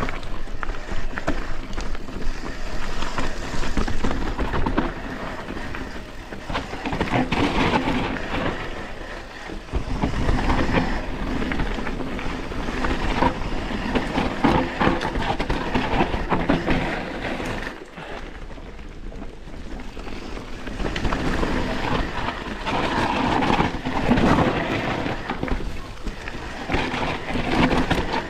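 YT Capra Core 3 MX mountain bike riding down a rough trail: tyres rolling over dirt and rock and the bike rattling, with wind rush on the microphone. The noise swells and eases with the terrain, dipping briefly about two-thirds of the way in.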